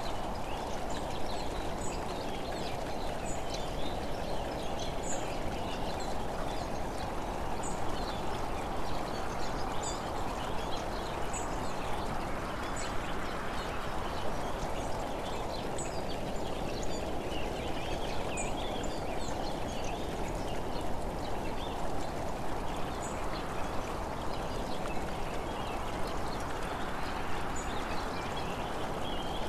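Steady rushing wind and road noise from a camera travelling along a road, swelling and easing a few times, with faint short high chirps or ticks scattered through it.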